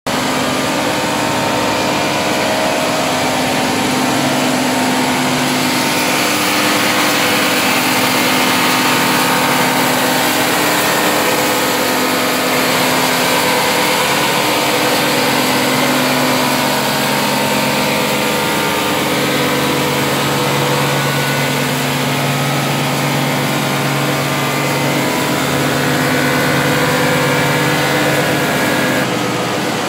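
Vangroenweghe FG 650 wide-belt calibrating sander running: its motors and sanding belts give a loud, steady hum with a few held tones over a broad hiss.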